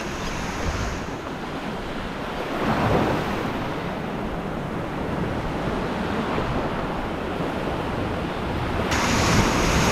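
Ocean surf rushing and washing around the shallows, a steady noise that swells about three seconds in and grows louder and hissier near the end as a wave washes in.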